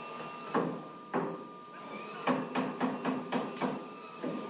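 A hammer striking wooden slats as they are knocked into a steel frame: two single blows, then a quick run of about seven blows at roughly four a second. A faint steady hum runs underneath.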